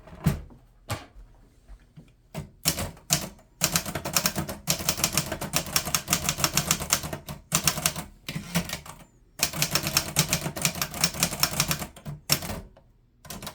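1956 Hermes Baby portable typewriter being typed on: a few separate key strikes, then two fast runs of keystrokes broken by a short pause about nine seconds in.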